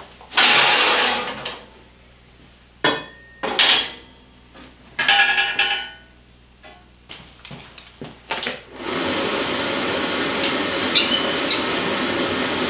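Long steel bars clank and ring as they are laid on the forge's rest, several separate metal knocks in the first six seconds or so. About nine seconds in, the electric air blower of the forced-air propane ribbon-burner forge starts and runs with a steady hum.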